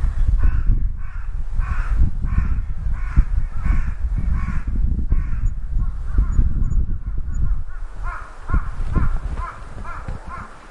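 Distant crows cawing in two runs of repeated calls, a longer series early and a quicker, shorter series near the end, over a steady low rumble.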